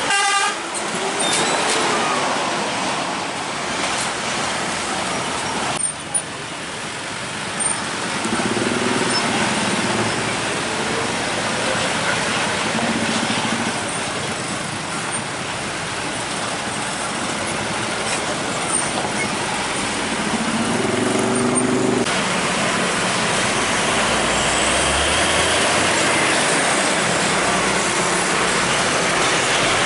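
Heavy diesel trucks passing slowly one after another, their engines running under steady tyre and traffic noise.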